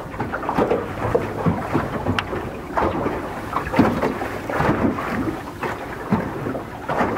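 Wind buffeting the microphone over choppy water lapping against a small boat, coming in uneven gusts and splashes.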